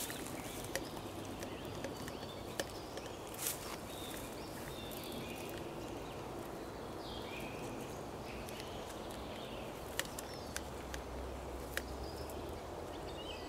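Birds chirping over a steady outdoor background hiss, with a few short light clicks and taps from handling the string and plastic bottle being tied to the birch trunk.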